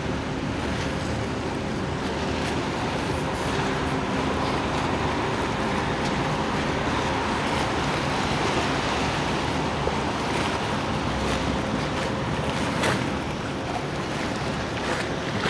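Steady outdoor harbour ambience: wind rumbling on the microphone, with a faint steady hum underneath and a single sharp click near the end.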